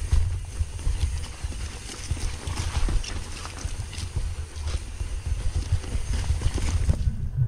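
Mountain bike clattering over a rough trail on a descent, with a steady stream of irregular knocks and rattles, under heavy wind rumble on the microphone. Near the end the high clatter suddenly drops away.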